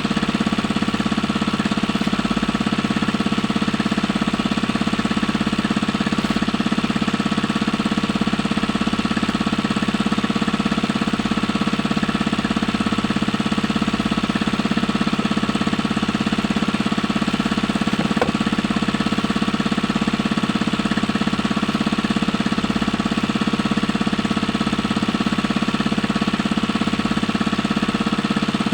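A small engine running steadily at an even speed, with a fast, even chugging. There is a single faint click about eighteen seconds in.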